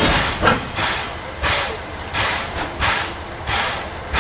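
Standing C11 steam locomotive's steam-driven air compressor pumping: a regular hissing puff about every two-thirds of a second over a low rumble.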